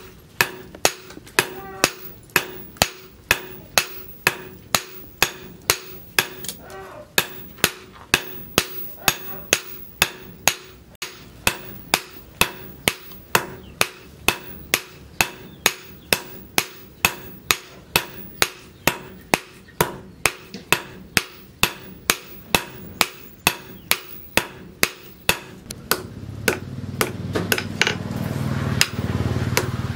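Hand hammer striking a red-hot knife blade of plough-disc steel on a steel post anvil: sharp metallic blows at a steady pace of about two a second, the blade being forged to shape. A low rumble builds beneath the blows near the end.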